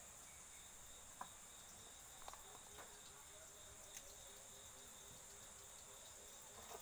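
Near silence with a faint, steady high-pitched insect chorus, and a few soft clicks as the plant pots and cardboard box are handled.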